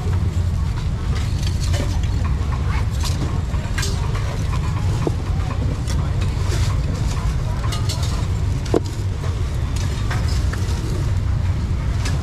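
Busy street-market ambience: a steady low traffic rumble with scattered clinks and knocks.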